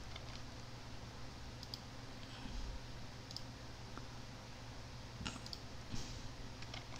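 A few scattered, quiet computer mouse clicks at irregular intervals, over a faint steady low hum.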